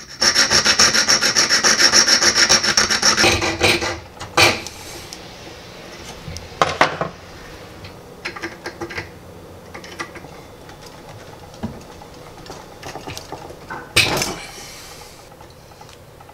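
Hand file rasping across the end of a thin brass rod in rapid strokes for about three seconds, filing the cut end flat. After that, quieter handling noise with a few sharp knocks as the small brass pieces are handled.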